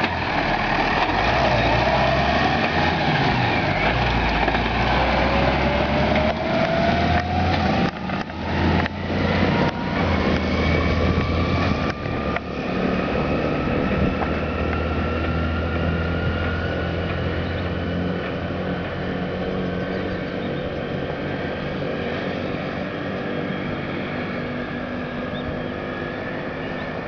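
Case IH 5150 Plus tractor's diesel engine pulling a towed implement along the road and driving away, fading slowly as it goes. A whine rises in pitch several times as the tractor picks up speed.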